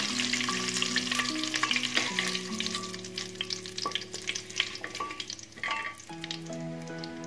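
Whole cumin seeds, bay leaves and cloves sizzling in hot desi ghee in a steel pot, being lightly fried as the spice tempering for pulao. A spatula stirs them, clicking and scraping on the metal, and the sizzle thins out after a few seconds.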